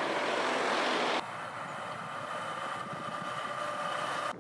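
Heavy eight-wheeled BM-27 Uragan rocket launcher trucks driving: steady engine and tyre noise. It drops abruptly to a quieter passage about a second in, where a steady whine sits over the running noise.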